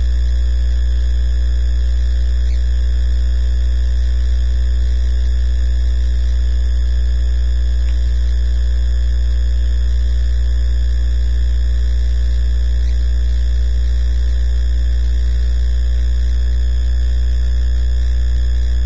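Loud, steady electrical mains hum, a deep drone with a stack of fainter steady tones above it, unchanging and with nothing else over it.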